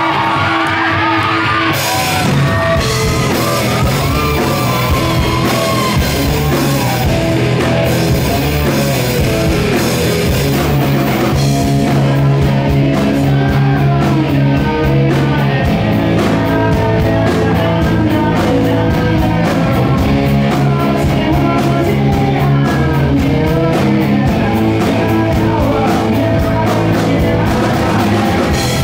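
A rock band playing live: electric guitars, bass and drum kit, with a singer's voice over a steady drum beat.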